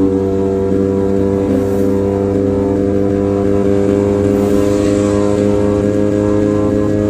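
Motorcycle engine running at a steady cruising speed, its pitch holding even, under a steady rush of wind. It is heard from a helmet-mounted camera.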